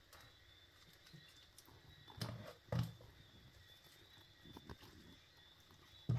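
Quiet handling sounds as hands pack chopped callaloo greens into the cavity of a whole fish over a plastic tub, with a few short low thumps, the strongest about three seconds in and another near the end.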